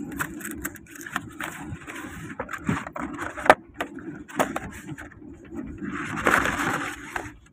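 Small cardboard box being opened by hand: rustling and scraping of card with several sharp clicks, a loud snap about three and a half seconds in, and a longer scraping rub near the end as the inner part slides out. Under it runs the steady low rumble of the moving train carriage.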